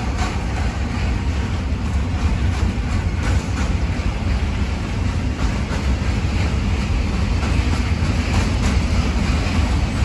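Container freight train's wagons rolling past at low speed: a steady low rumble of wheels on rail, with occasional faint clicks as the wheels cross rail joints and points.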